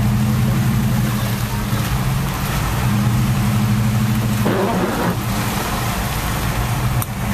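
Dodge Durango engine running at a steady hum, heard from inside the cabin while driving on wet roads, with a haze of rain and tyre noise. About four and a half seconds in, a windshield wiper sweeps the glass with a brief swish.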